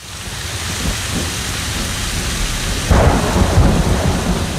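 Steady heavy rain, with a roll of thunder breaking in about three seconds in and rumbling on.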